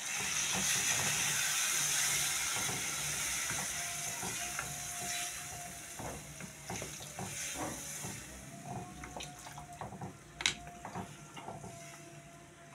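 Beef sizzling in a hot pot as water goes in, the hiss loudest at first and slowly dying down, while a wooden spoon scrapes and knocks against the pot in stirring. A faint steady whine comes in after a few seconds.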